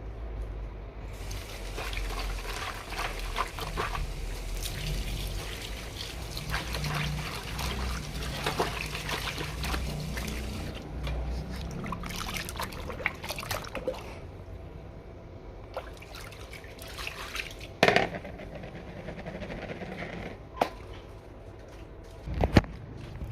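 Liquid running or trickling steadily for about ten seconds, then stopping, followed by a few sharp knocks and clatters.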